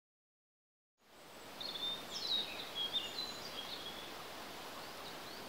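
Songbirds chirping over a steady hiss of outdoor ambience, which fades in after about a second of silence; the chirps are busiest in the middle and thin out toward the end.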